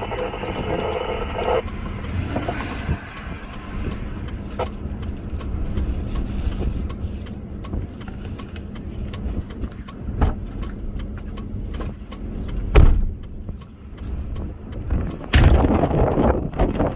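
Wind noise rumbling on a phone microphone outdoors, with handling knocks and clicks. The loudest thumps come about two-thirds of the way through and again near the end.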